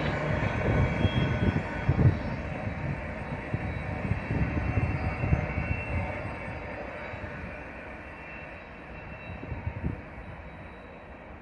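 Rear cars of a freight train, open-top hopper cars, rolling away along the track: a steady wheel-and-rail rumble that fades as the train recedes, with a sharper knock about two seconds in and another near the end.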